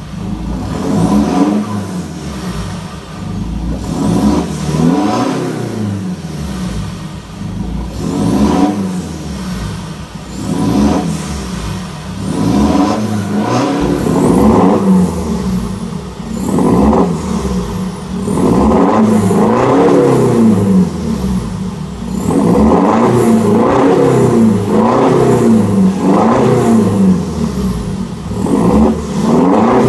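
A 2015 Ford Everest turbodiesel with an aftermarket turbo-back exhaust and air intake, revved repeatedly while standing still. The exhaust note climbs and falls in blips a few seconds apart at first, then in quicker blips one after another from about halfway.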